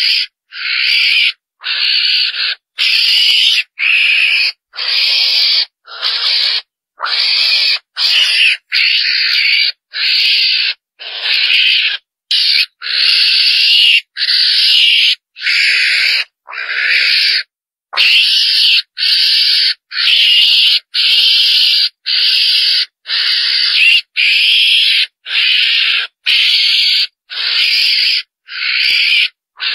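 Mongoose (chồn đèn) calls repeated about once a second, each call short and high-pitched, with sharp silent gaps between them. It is a looped hunting lure call meant to draw a whole group of mongooses in.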